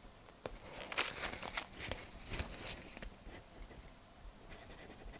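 Pokémon trading cards being handled: soft rustling and small clicks, mostly in the first three seconds, then quieter.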